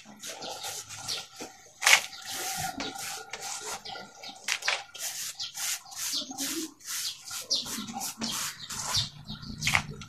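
Hands crumbling and scraping dry clay clods on a concrete floor and scooping them into a plastic bowl: a quick run of gritty scrapes and crunches. The clay is being broken up fine before it is soaked for plastering a mud stove.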